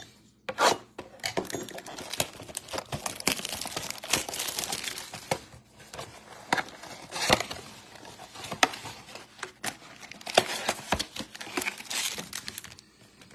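Hands opening a cardboard blaster box of trading cards: crinkling plastic wrap, rustling, and sharp rips and snaps of the cardboard as the box is torn open and the packs are pulled out.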